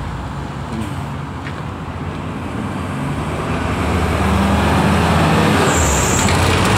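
Street traffic, with a TriMet city bus pulling past close by. Its engine grows louder from about halfway through, and there is a brief high hiss near the end.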